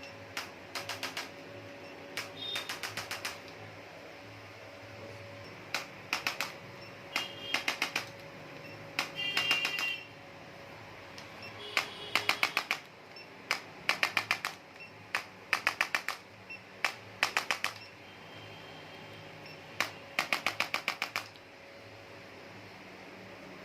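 Short runs of rapid sharp taps, about five to eight in half a second, repeating every second or two and stopping near the end, over a faint steady hum.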